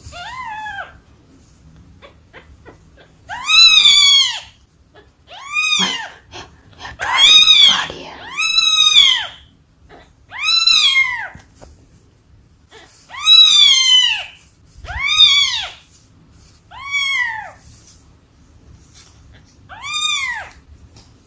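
Newborn kitten crying in about ten shrill meows, each rising then falling in pitch and lasting under a second, one every one to three seconds, while its rear is rubbed with a tissue to help it pass stool. The uploader puts the crying down to constipation.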